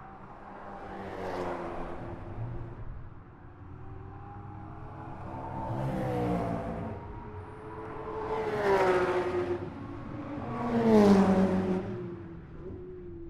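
Track cars passing one after another on the circuit, four in turn, each engine note swelling and then dropping in pitch as it goes by; the last pass is the loudest.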